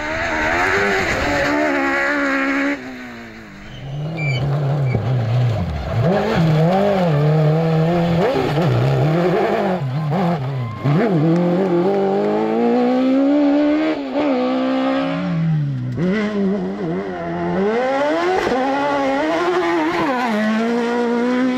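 Off-road rally buggy engines at high revs, the pitch climbing and dropping back repeatedly through gear changes. This comes as a string of separate passes cut one after another.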